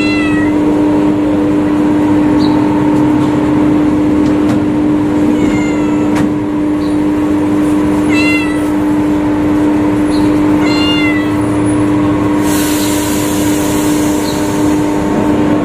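A kitten meowing: four short, high meows a few seconds apart, over a loud steady hum. A brief hiss comes in about three-quarters of the way through.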